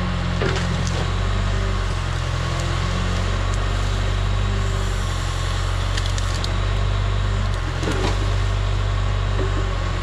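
John Deere 410B backhoe's diesel engine running steadily while its jaw bucket grabs brush, with branches cracking and snapping a few times: about half a second in, around six seconds and again at eight seconds.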